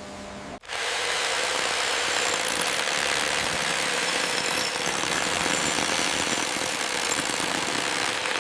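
Pneumatic rock drill hammering steadily into hard rock. It starts abruptly just under a second in.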